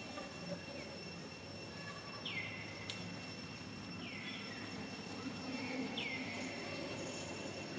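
Outdoor forest ambience: insects droning steadily at a high pitch, with a short falling whistled call repeating about every two seconds.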